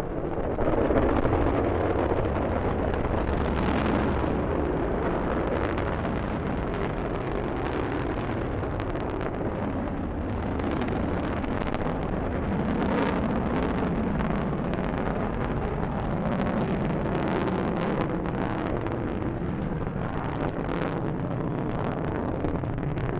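Delta rocket's main engine and strap-on solid rocket boosters firing during liftoff and ascent: a dense, steady rumble with crackling, getting louder about half a second in.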